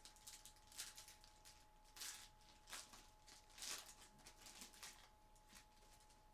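Faint, irregular rustling and crinkling of a trading-card pack wrapper and cards being handled, with a few louder crinkles, over a steady electronic hum.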